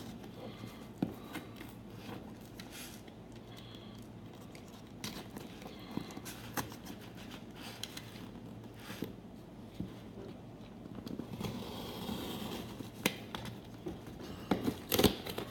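Rustling, scraping and tearing of a parcel's packaging as it is worked open by hand, with scattered small clicks and knocks, a few sharper ones near the end.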